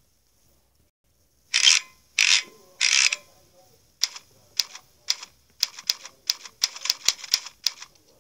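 Typewriter keys clacking: three heavier, longer strokes, then a quick run of about a dozen sharp key strikes typing out a short line.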